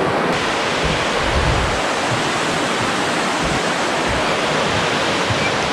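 Steady rush of falling water, an even continuous noise with no change in strength.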